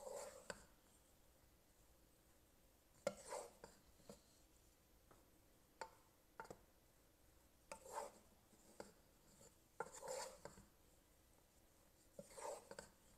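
Faint, irregular knocks and scrapes of a wooden spoon stirring mini marshmallows in a metal pot, a soft tap or scrape every second or so with near silence between them.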